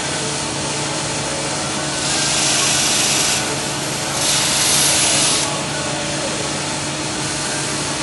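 A motor-driven grinding wheel spinning with a steady hum. About two seconds in, and again just past four seconds, a knife piece is pressed to it for a second or so each time, making a louder hiss of metal on the wheel.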